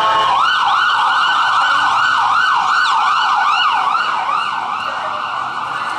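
Emergency vehicle siren in a fast yelp, its pitch rising and falling about three times a second, blurring into a steadier tone in the last second or so.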